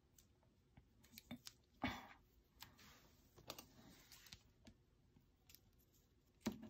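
Faint handling of planner paper and stickers: scattered small clicks and taps with brief paper rustles, the loudest rustle about two seconds in.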